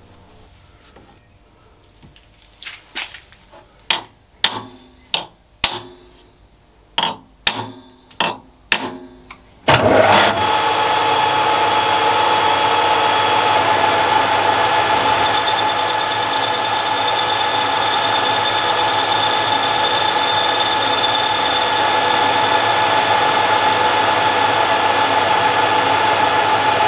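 A dozen or so sharp metallic knocks with short ringing tails as an aluminium gear blank is set and clamped in the lathe chuck. About ten seconds in, a Warco WM180 mini lathe starts abruptly and runs steadily with a whine while facing off the blank; a higher tone is present for several seconds in the middle.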